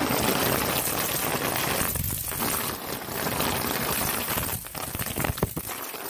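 Compressed air at 40 psi hissing through a DIY latex-tube air whip as it lashes around inside aluminium foil flex duct, the tube tapping and crinkling rapidly against the foil. The hiss eases briefly about two seconds in.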